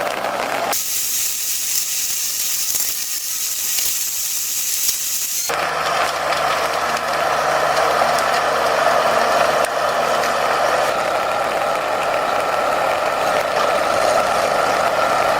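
Heavy machinery at work: a steady high-pitched hiss that cuts off sharply, then a dense mechanical clatter over a low engine hum that fades out partway through.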